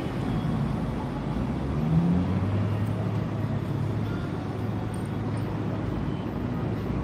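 Low, steady motor-vehicle rumble, with a steady engine hum coming in about two seconds in and holding.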